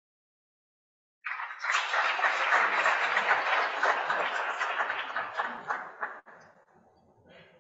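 Audience applauding, starting about a second in and cutting off sharply after about five seconds, with faint room noise after.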